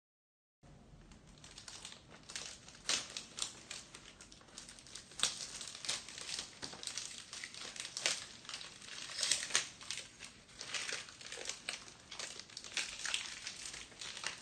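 Cellophane wrap on a perfume box being torn and peeled off: irregular crinkling and rustling with sharper crackles, starting about half a second in.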